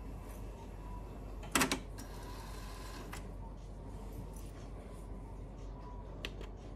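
Pioneer CT-447 cassette deck's tape transport mechanism clicking as it works through its Auto BLE tape calibration: a loud double clack about one and a half seconds in, a lighter click a little after three seconds and another near the end, over a low steady hum.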